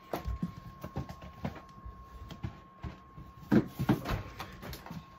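Rustling, knocks and handling noises from a cardboard cereal box being moved about close to the microphone, with a louder cluster of knocks and rustles about three and a half seconds in.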